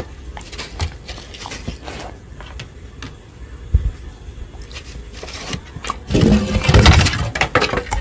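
A dog eating, chewing and smacking its food with irregular sharp clicks, growing louder and denser in the last two seconds.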